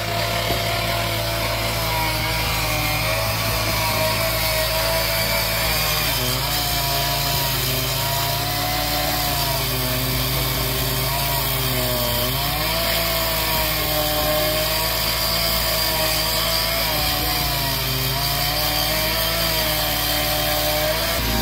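Petrol cut-off saw (two-stroke disc cutter) cutting through tarmac with water fed onto the blade. It runs steadily throughout, its engine pitch wavering and dipping briefly a few times as the blade bites.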